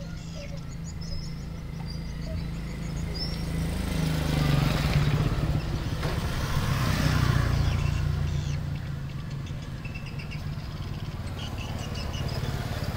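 A motor vehicle engine passing by over a steady low hum, growing louder about four seconds in and fading after about eight seconds, with faint bird chirps.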